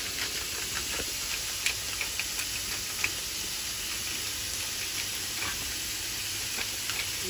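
Ground turkey, onion and garlic sizzling in a stainless steel frying pan, a steady hiss with a few light clicks scattered through it.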